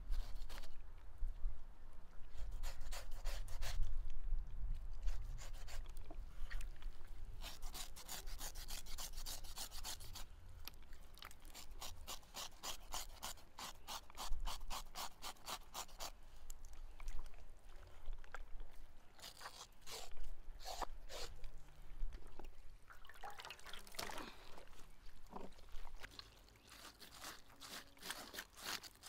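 Kitchen knives scraping the rough inner lining of a raw beef stomach (tripe) to clean it, in quick runs of short rasping strokes about four a second, with pauses between the runs.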